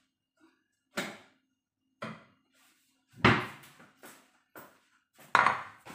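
A series of sharp knocks and clatters of kitchen bowls and dishes being handled, about six in all. The loudest come a little after three seconds in and again near the end.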